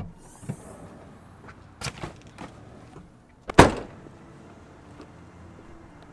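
SUV door and bag handling: a sharp click as the door opens, a couple of lighter knocks as the duffel bag is pulled out, then a car door slams shut about three and a half seconds in, the loudest sound.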